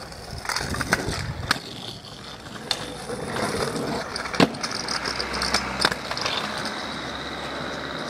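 Kick scooter wheels rolling over rough tarmac, with several sharp clacks of the scooter striking the road, the loudest about four seconds in.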